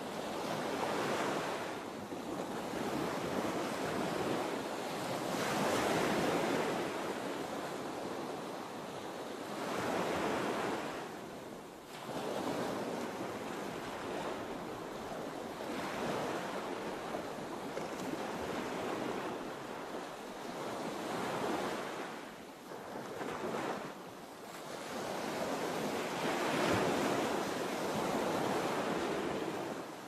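Sea surf: waves washing in and drawing back, a rushing sound that swells and fades every few seconds.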